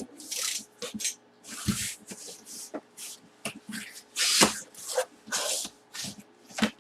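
Cardboard box and packaging being opened by hand: a quick series of short rustling and tearing noises with a few knocks and clicks.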